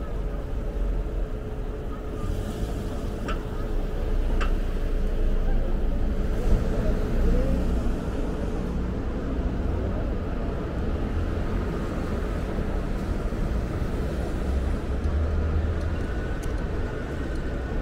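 City street ambience: a steady rumble of road traffic with faint voices of passers-by, and two short clicks a few seconds in.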